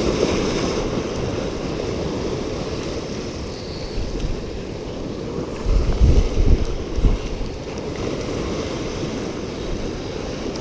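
Surf washing and splashing against the rocks of a jetty, with a steady wash of sea noise. About six seconds in, wind gusts buffet the microphone with low rumbles.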